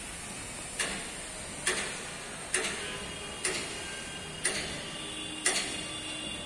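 Hammering on metal: sharp knocks about once a second, each with a brief ring, over a steady hiss.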